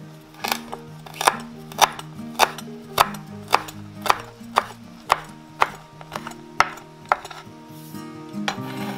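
Chef's knife chopping fresh thyme on a wooden cutting board: sharp, evenly spaced knocks of the blade on the wood, about two a second.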